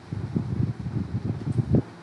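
Irregular low rumbling buffets of moving air hitting the microphone, without speech, dying down near the end.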